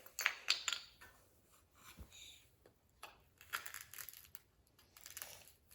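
Small plastic fidget toys being handled and packed: scattered clicks, taps and short rustles in a few quick bunches, with quiet gaps between them.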